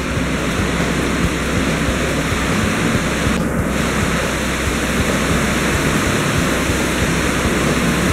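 Steady, even rushing noise with no separate events, like water or air flowing.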